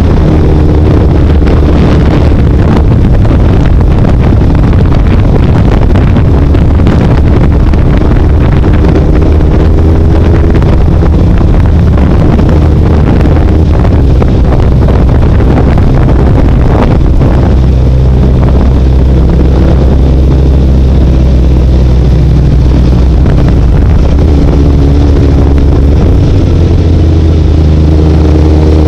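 Heavy wind rush buffeting the microphone of a rider moving at road speed. A pitched engine drone shows through at the start, fades under the wind after a few seconds, and comes back rising in pitch near the end.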